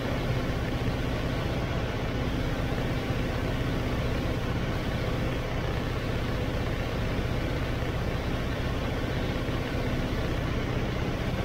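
Robin DR400 light aircraft's piston engine and propeller droning steadily in flight, heard from inside the cockpit, with heavy wind and airflow noise over it.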